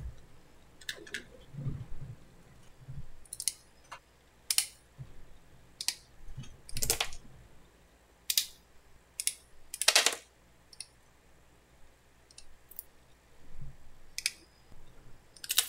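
About a dozen sharp, irregularly spaced clicks and light taps of small hard resin miniature parts and tools being handled during kit assembly.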